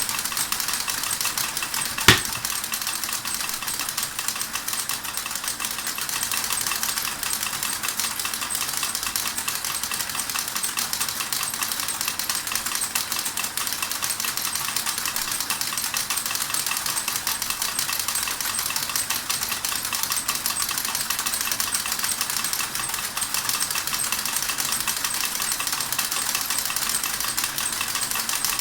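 Model steam engine running with its driven models, a steady fast clatter and rattle of small metal parts. A single sharp click stands out about two seconds in.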